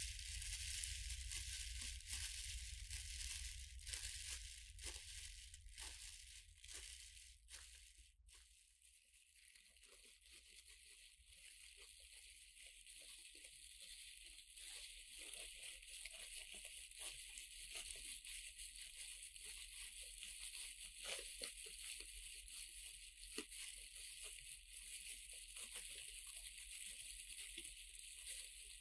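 Faint crinkling and rustling of thin plastic packaging film as a cat moves through it, a steady run of small crackles.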